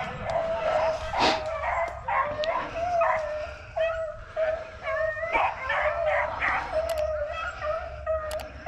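A pack of beagles baying and yipping on a cottontail's track, several dogs' voices overlapping in a continuous chorus: hounds in full cry running the rabbit. A sharp snap is heard about a second in.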